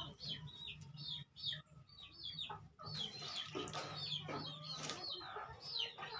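Chickens clucking and peeping: a steady run of short, high calls that fall in pitch, a few each second.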